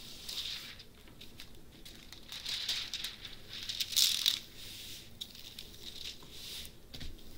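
Clear plastic film on a diamond painting canvas rustling and crinkling as hands rub and smooth it flat, in several soft swishes with small clicks; the loudest swish is about four seconds in.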